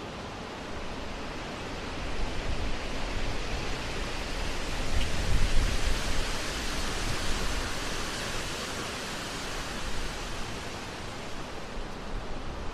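Wind rushing through bare woodland, swelling into a gust in the middle with low rumbling on the microphone, then easing off.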